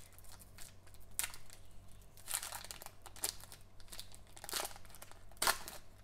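Foil wrapper of a Panini Mosaic trading-card pack crinkling and tearing as it is ripped open by hand, in irregular sharp crackles, the loudest about five and a half seconds in.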